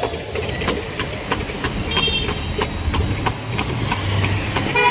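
A horse's hooves clop on the paved road as a tonga's cart clatters and rattles along behind it. A short high horn toot sounds about two seconds in, and there is low traffic noise underneath.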